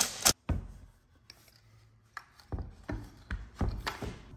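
A cordless driver runs briefly, driving a bolt into the metal compressor mounting plate, and stops abruptly. After about a second of near quiet, there is a run of light knocks and taps of metal parts on a wooden workbench.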